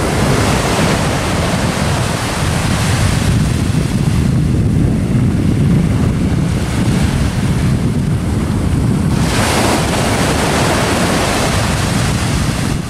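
Sea surf: small waves breaking and washing up a coarse sandy beach, with wind rumbling on the microphone. A wave washes up with a brighter hiss about nine seconds in.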